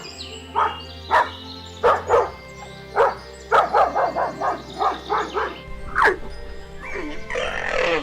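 A dog barking repeatedly over background music, with a quick run of barks about halfway through.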